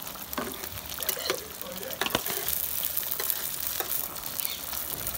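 Wooden spoon stirring egg-battered fish pieces in a simmering tomato broth in a stainless steel pot, with a few sharp knocks of the spoon against the pot over a steady hiss.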